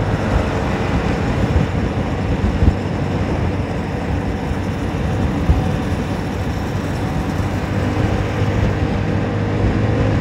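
Honda Forza 300 scooter's single-cylinder engine running at a steady cruise while riding, mixed with even road and wind noise.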